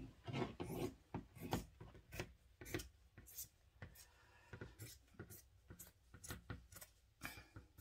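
Scissors cutting through fabric in a string of irregular snips, one or two a second.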